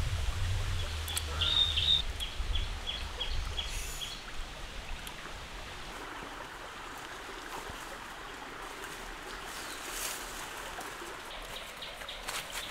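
Outdoor ambience in leafy undergrowth: a steady noisy hiss, with a bird giving a quick run of short, even, high chirps, about three a second, during the first few seconds over a low rumble.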